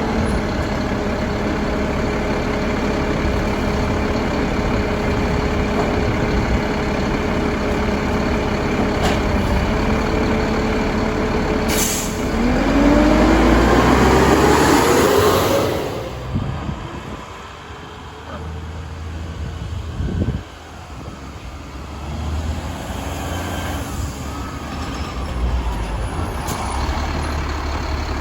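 Mack LEU garbage truck with a Labrie Helping Hand side-loader body, its engine and hydraulics running under load with a steady whine. About twelve seconds in there is a click, then a loud rising whine for a few seconds as the engine revs to drive the hydraulics, and after that it drops back to a lower idle. A short burst of air hiss comes near the middle of the quieter stretch.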